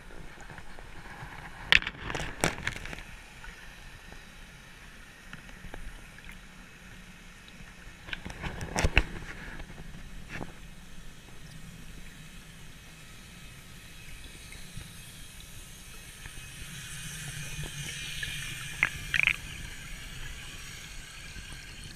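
Muffled underwater sound picked up by a GoPro in its waterproof housing: a steady watery hiss with scattered sharp clicks and knocks, the strongest about 2 and 9 seconds in. Over the last few seconds the hiss swells as the camera nears the surface.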